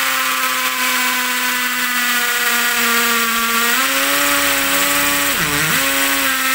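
Bull 20 V cordless hammer drill boring into a concrete wall: a steady motor whine over a harsh grinding rattle. About five and a half seconds in, the pitch drops sharply as the bit bogs down under load, then it picks back up.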